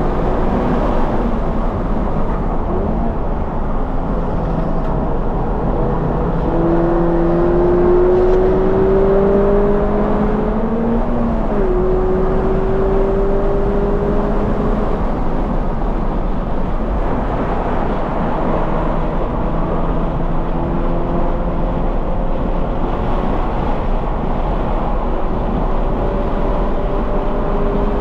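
2020 Toyota 86's 2.0-litre flat-four engine with a Corsa cat-back exhaust running hard on track, its pitch climbing for several seconds, dropping suddenly about eleven seconds in, then rising and falling with the throttle. A steady low rumble of wind and road noise sits under it.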